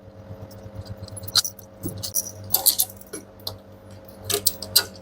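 Light metallic clicks and clinks of tools and nuts as the stator mounting nuts of an LG washer's direct-drive motor are undone, coming in small scattered bunches.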